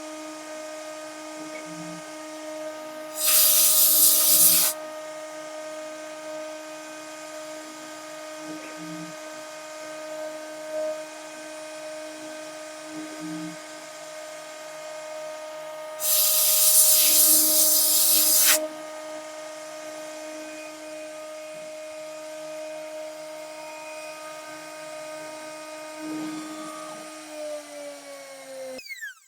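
CNC router spindle running at a steady high speed while isolation milling a copper-clad circuit board. Two loud bursts of noise, each a second or two long, stand out over it. Near the end the spindle winds down, falling in pitch, and stops.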